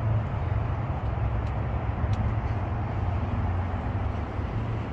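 Steady outdoor background noise: an even low rumble with a constant low hum underneath, like distant traffic or machinery.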